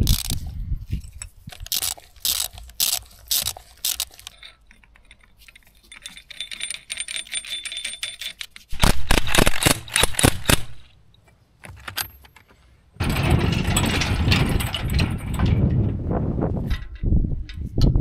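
Metal tools and bolts clinking, clanking and rattling during hand work on a tractor's steel parts, in sharp knocks and rapid runs of strikes. Near the end comes a few seconds of continuous loud mechanical rattling.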